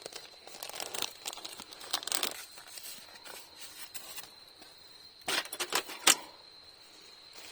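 Plastic food packaging crinkling and being torn open, with a quick run of sharp clicks and rustles a little after halfway.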